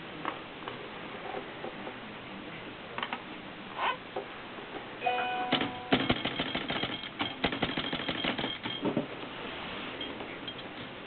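Adler Tippa S portable manual typewriter being typed on: a few scattered key clicks, then a brief ringing tone about halfway through, followed by a quick run of keystrokes lasting about three seconds.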